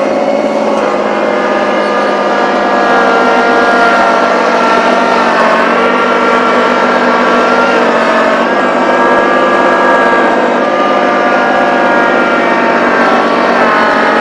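Small tractor's engine running hard under working load, its pitch dipping and recovering a few times, around the middle and again near the end.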